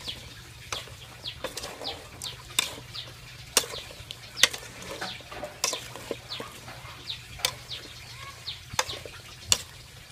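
A spatula stirs chunks of luffa gourd in an aluminium cooking pot, giving irregular knocks and scrapes against the metal about once or twice a second. Short high chirps of birds come in between.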